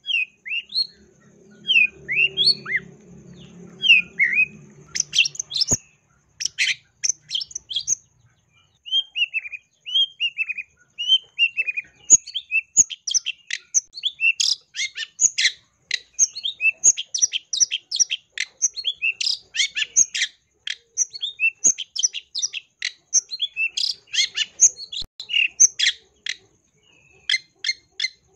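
Long-tailed shrike (cendet) singing a loud, varied song full of mimicked 'isian' phrases. It opens with slurred falling whistles, and from about halfway in it breaks into a fast, dense run of short chattering notes.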